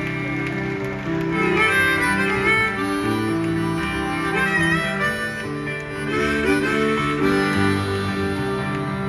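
Live band playing an instrumental song intro: a harmonica melody with bending notes over guitar chords.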